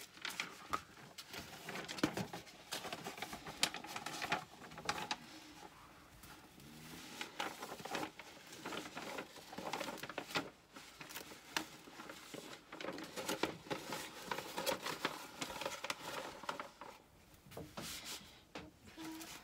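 Crinkling and rustling of a diamond-painting canvas's plastic film and paper wrapping as the rolled canvas is unrolled and smoothed flat by hand, with many small sharp crackles throughout.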